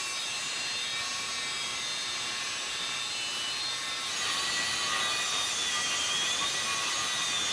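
A power tool cutting a piece of stainless steel sheet: a steady, high hissing noise with a faint whine that wavers in pitch, getting a little louder about four seconds in.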